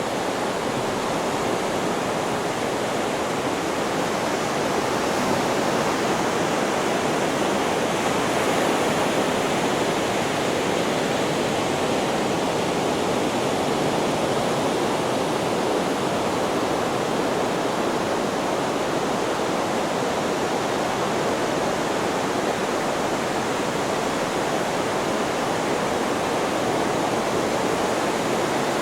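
Steady, even rushing noise from a white-noise track for sleep, holding level without the rise and fall of single waves.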